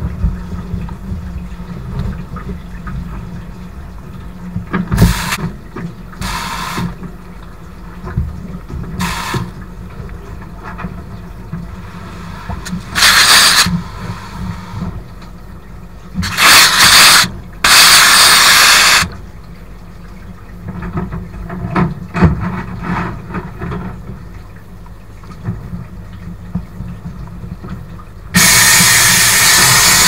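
Wet (vapour) blasting cabinet: its pump runs with a steady low hum and water churning, while the blast gun hisses in several short bursts through the middle and then blasts continuously near the end, stripping rust from a door lock plate.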